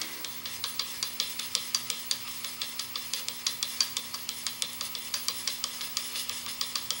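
Steel chisel in a General honing jig being stroked back and forth on a fine DMT diamond sharpening stone: a quick, even scratching rhythm of about five strokes a second as the bevel is honed.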